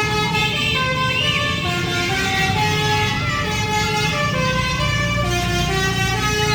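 Basuri musical horn playing a tune of held notes stepping up and down in pitch, over the steady low rumble of the vehicle's engine.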